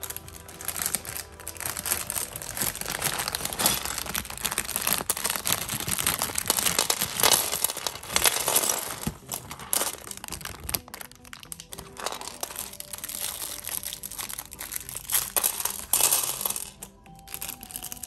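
Clear plastic parts bag of Lego pieces crinkling as it is opened and handled, with small plastic bricks clicking and rattling as they spill onto a plastic tray. The crinkling dies down near the end.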